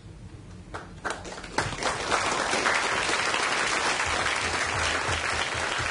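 Audience applauding. It begins as a few scattered claps and swells into full applause within about two seconds.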